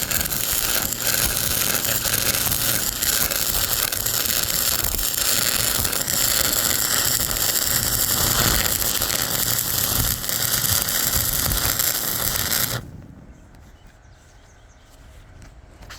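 Electric arc welding: a loud, steady crackling hiss full of small pops, which cuts off suddenly near the end as the arc is broken.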